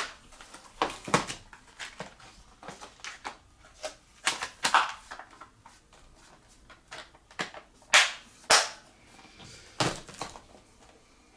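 Irregular plastic clicks and knocks from a Blu-ray box set being handled as its disc holders are opened and leafed through. The knocks come in scattered clusters with short quiet gaps.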